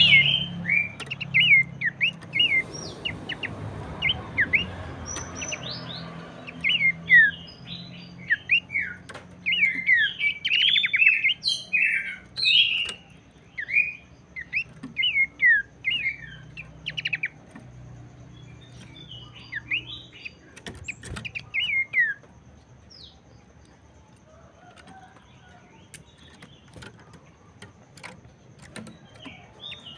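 Pelanduk semak (Horsfield's babbler) calling in rapid runs of short, sharp chirps. The calls are dense at first and thin out to a few scattered faint notes about two-thirds of the way through.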